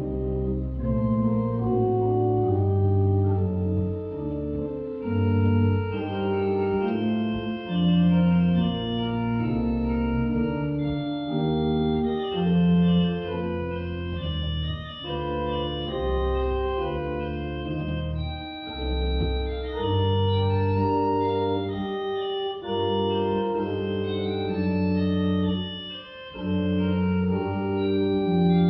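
Pipe organ playing a classical piece: sustained chords that change every second or two over a deep bass line, with a brief break in the sound near the end.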